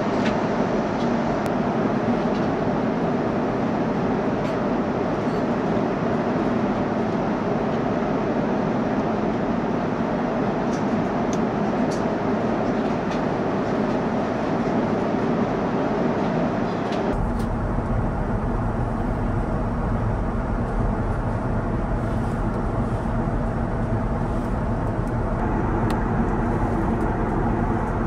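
Steady airliner cabin noise at cruise inside an Airbus A350-1000: a constant rush of air over a deep engine rumble. About 17 seconds in, the sound shifts abruptly to a stronger low rumble with less hiss.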